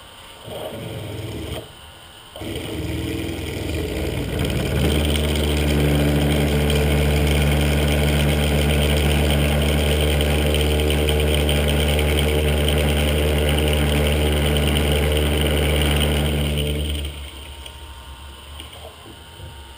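Titan TM25V milling machine's spindle running a twist drill in its drill chuck, drilling bright mild steel. It starts briefly, stops, then starts again and rises in pitch over a couple of seconds, runs at a steady hum, and shuts off about three seconds before the end.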